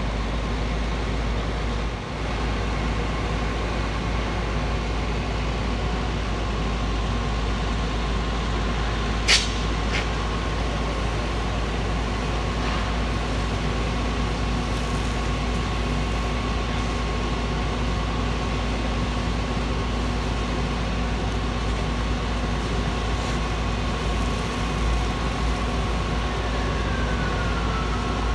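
Fire engine's engine and pump running steadily, a low rumble with a steady whine. A single sharp crack about nine seconds in, followed by a fainter one, and a faint falling tone near the end.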